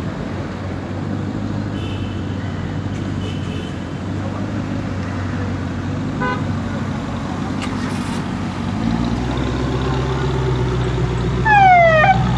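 Ferrari California T's twin-turbo V8 idling steadily. About nine seconds in, a deeper engine note joins and grows louder as a Jaguar F-Type rolls past, and near the end a quick run of falling siren-like chirps is the loudest sound.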